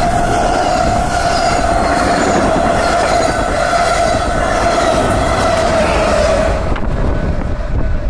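Sounder commuter train's bilevel coaches rolling past close by: loud, steady rumbling wheel noise with a steady whine that sinks slightly in pitch. The whine and the higher noise drop away about seven seconds in as the train moves off, leaving a low rumble.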